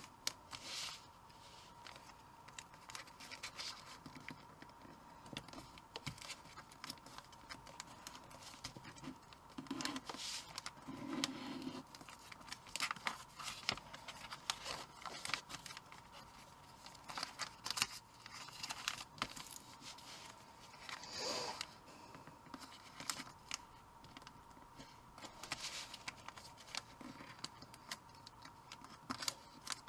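A sheet of origami paper being folded and creased by hand: irregular crinkles and rustles with short scratchy strokes as the folds are pressed flat.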